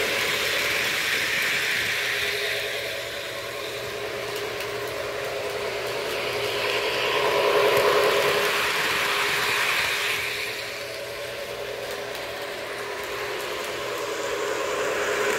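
Model Santa Fe diesel passenger train running on its track, a steady rolling rumble and motor hum. It swells louder as the train passes close, at the start, around eight seconds in and again near the end.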